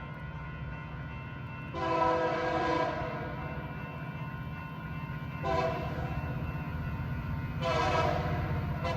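Locomotive multi-chime air horn sounding a chord in three blasts: a long one about two seconds in, a short one in the middle and another long one near the end. Beneath it a diesel engine runs steadily.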